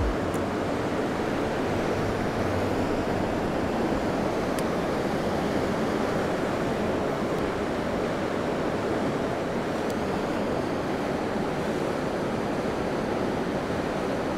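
Steady rush of a wide, fast-flowing river.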